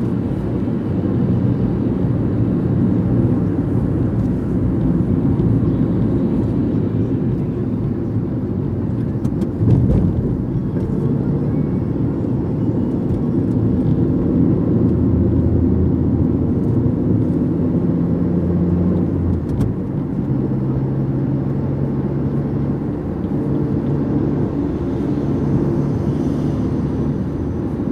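Road noise and engine hum of a car driving along a highway, heard from inside the cabin, a steady low rumble whose engine note shifts now and then. A single thump about ten seconds in.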